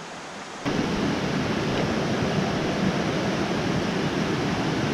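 Mountain creek water rushing over rocks and riffles, a steady noise. It is soft for the first moment, then much louder from under a second in.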